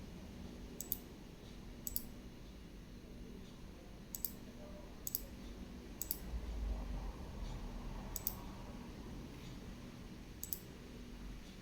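Short, sharp clicks at irregular intervals, about seven in all, several coming as quick double clicks, with a brief low rumble about six seconds in.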